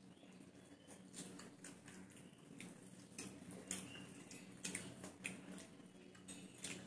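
Faint eating sounds: scattered small clicks of metal forks on ceramic plates, with chewing of noodles, over a low steady hum.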